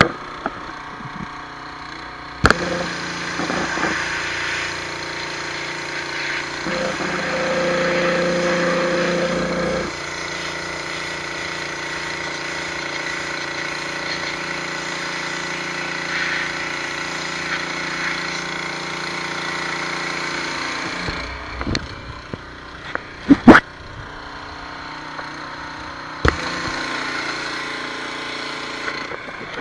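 High-pressure washer running, its jet hissing onto bluestone over a steady pump hum; it starts about two seconds in and cuts off a little after two-thirds of the way through. Afterwards a few sharp knocks, one of them loud.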